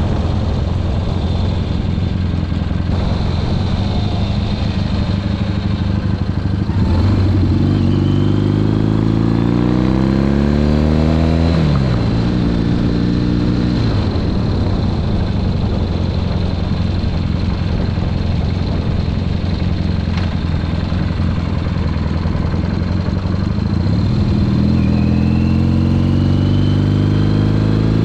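Triumph Bonneville parallel-twin motorcycle engine under way, with wind rushing over the microphone. The engine climbs in pitch under acceleration, drops sharply at an upshift, then settles. It climbs again near the end.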